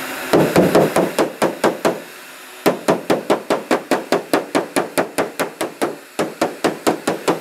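Quick, even hammer taps on an aluminum car hood, about five a second, in two runs with a short pause about two seconds in: working out dents and pick marks in the panel.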